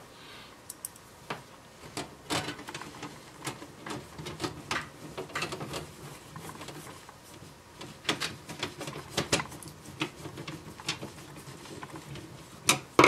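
Hand screwdriver driving screws into the sheet-steel back panel of a CD player: irregular small clicks, ticks and short scrapes of the blade and screw turning, with a couple of louder metal knocks near the end.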